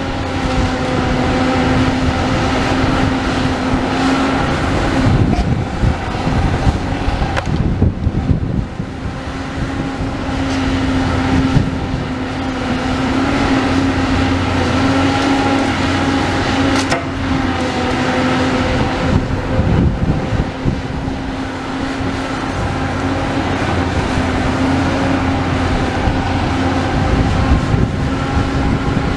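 Hydraulic demolition excavator's diesel engine and hydraulics running with a steady hum and low rumble, with a few short knocks.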